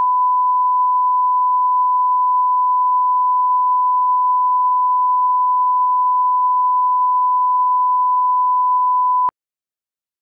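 Steady 1 kHz line-up test tone, the reference beep that runs with colour bars, cutting off abruptly near the end.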